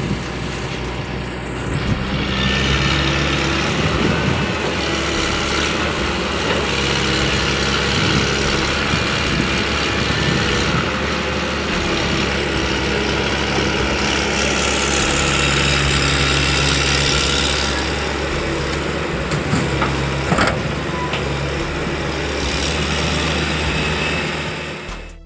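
A large vehicle's engine running steadily at idle, with a constant low hum, and a short sharp clack about twenty seconds in.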